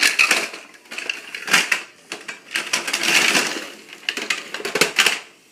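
Plastic toy pieces clicking, rattling and rustling as they are handled, in irregular bursts with a few sharp clicks.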